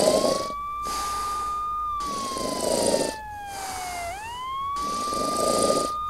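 Cartoon snoring sound effect: rough snore breaths with a whistle that rises, holds, then slowly falls, repeating about every four seconds.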